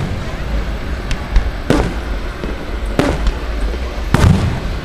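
Aerial firework shells bursting: three loud booms about a second apart, each trailing off in a low rumble, with a couple of fainter cracks before them.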